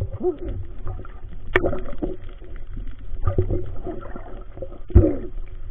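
Underwater noise of water moving and bubbling against the camera, with a few sharp knocks, the loudest about five seconds in.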